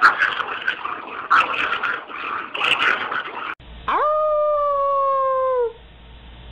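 Rough, noisy bursts about once a second, then a dog howling: one long howl that rises quickly, holds steady and sags slightly as it ends.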